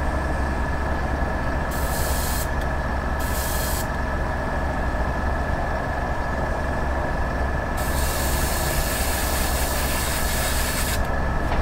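Airbrush spraying paint in short bursts of hiss, twice briefly in the first few seconds and then a longer spray of about three seconds near the end, over a steady motor hum.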